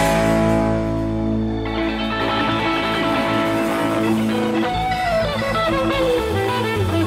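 Live rock band holding a ringing chord on electric guitar, keys and bass, with no drum hits. About halfway through, an electric guitar line winds downward in pitch.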